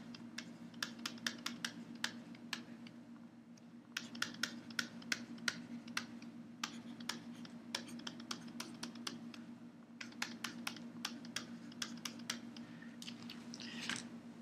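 Pen stylus tapping and scratching on a graphics tablet during handwriting: quick runs of sharp ticks with brief pauses, over a faint steady low hum.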